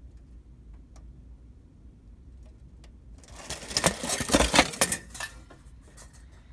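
A burst of rapid, irregular clattering and clinking from metal window-blind slats knocked about, starting about three seconds in, loud for about two seconds, then trailing off in a few lighter rattles.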